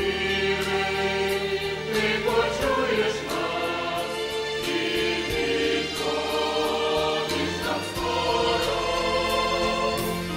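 Mixed church choir of men and women singing in parts, holding long chords that change every second or two.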